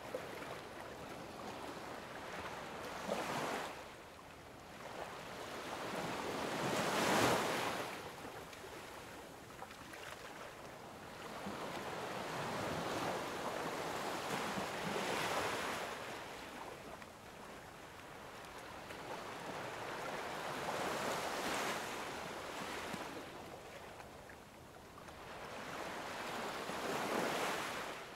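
Sea waves washing onto a shore, in several slow surges that each swell and fall away over a few seconds.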